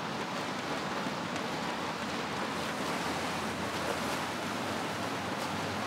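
Steady wash of splashing water from swimmers racing butterfly in an indoor competition pool.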